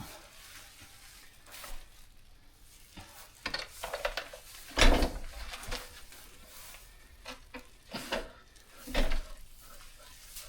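Wet, squelching handling sounds and rustling as a lamb is worked out of a ewe during an assisted delivery, irregular, with two louder scuffing thumps about halfway through and near the end.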